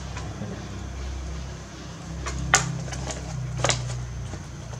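A clear plastic clamshell strawberry box being opened by hand: two sharp plastic clicks as the lid snaps free, the louder one about halfway through, over a steady low hum.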